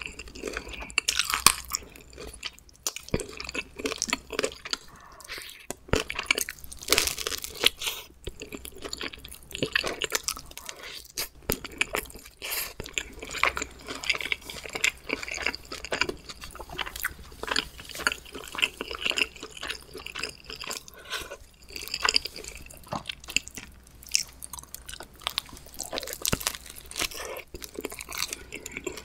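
Close-miked chewing and crunching of homemade pizza, with irregular bites and mouth sounds following one another.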